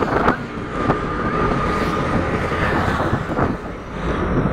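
Steady rumble of traffic and a moving vehicle heard while riding along a highway, with a few brief knocks.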